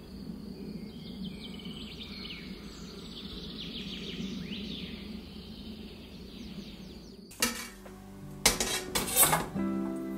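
Birds chirping over a steady outdoor background for about seven seconds, then sharp metallic clinks and clatter as a stainless steel steamer basket is handled in its pot.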